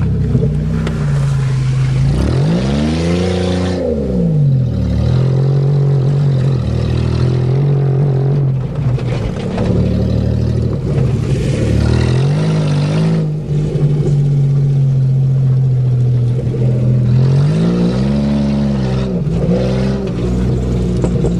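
A 1990 Buick's engine heard from inside the cabin while driving through mud, revving up and dropping back several times (about two seconds in, around twelve seconds and again near the end), running steadily between.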